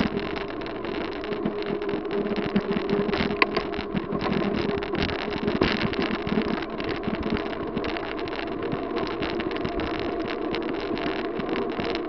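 Wind buffeting the microphone of a camera on a moving bicycle: a steady rushing noise broken by frequent short crackles and thumps.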